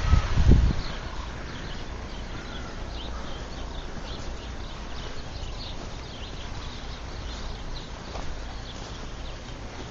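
Wind buffeting the microphone in a brief low rumble at the start, then a steady outdoor hiss with scattered short, high chirp-like sounds.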